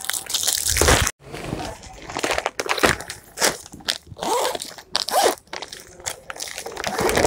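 Clear plastic packaging on garment packs crinkling and rustling as it is handled, loudest in the first second, then in irregular spells with short pauses.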